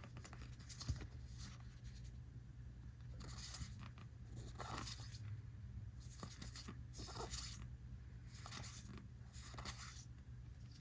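One Piece trading cards being flipped through by hand: faint, intermittent swishes of card stock sliding over card.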